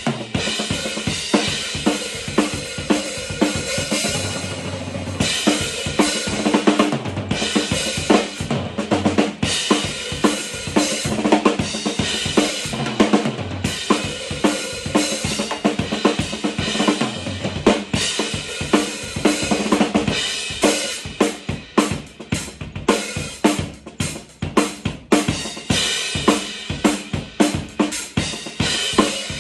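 Acoustic drum kit played: fast single-stroke patterns on the snare and toms, with bass drum and cymbals ringing over them.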